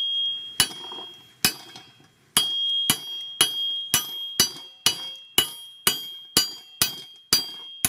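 Hammer blows on a flat steel sword-blade blank, each strike making the plate ring with a high metallic tone; about fifteen blows, quickening to roughly two a second. The blows are knocking at a partly cut waste piece to break it free of the blank.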